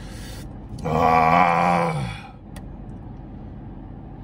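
A man's drawn-out groan, about a second and a half long, dropping in pitch as it ends.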